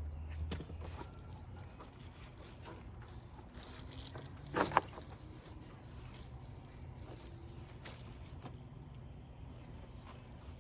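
Faint handling rustles and small clicks, with one sharp knock a little under halfway through as a curved rebar J-hook is set and driven into the soil to anchor the dirt lockers.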